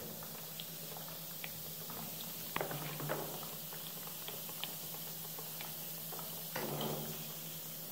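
Foaming chemical cleaning bath fizzing, with many small scattered pops and crackles as the bubbles burst. A few soft knocks come about two and a half seconds in and again near the end as the metal blower parts are lifted out with pliers.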